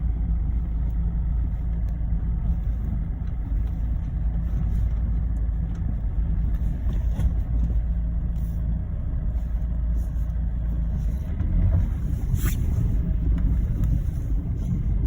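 Mazda 3 (BK) driving over rough road: a steady low road and engine rumble with occasional short sharp knocks from the front suspension, metal striking metal. The owner suspects worn sway bar end links or a worn upper strut mount bearing.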